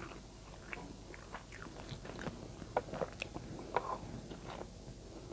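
Close-up eating sounds of a person taking a mouthful of rice and adobo by hand and chewing it, with many short wet smacks and clicks, thickest about halfway through.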